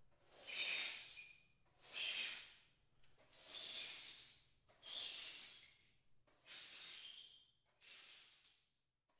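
Window glass smashing again and again: six crashes about one and a half seconds apart, each ending in tinkling shards, growing fainter toward the end.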